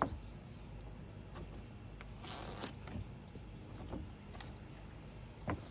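Handling noise from a campfire popcorn popper as oil is spread inside its pan: light rubbing and scattered small clicks and knocks, with a longer rub about two and a half seconds in.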